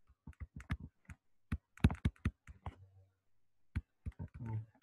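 Quick, irregular clicks and taps of a stylus on a pen tablet as words are handwritten, with a short pause about three seconds in.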